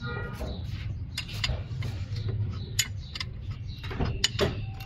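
Irregular light metal clicks and clinks of a wrench and hand tools working at a diesel injection pump's toothed pulley, over a steady low hum.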